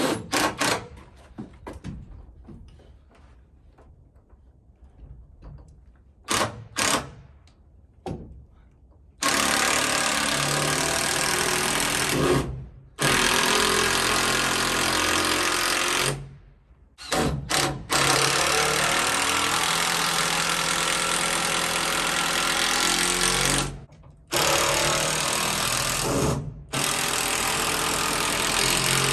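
A power tool running in long stretches of several seconds each, stopping briefly four times, after a few scattered knocks and clatters.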